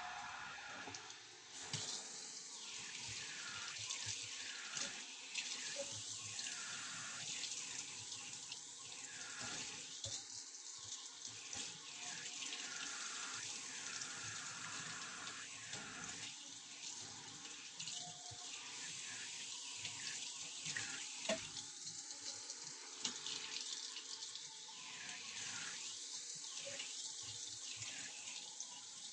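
Tap water running steadily into a sink or basin, starting about a second and a half in, the splash changing a little now and then.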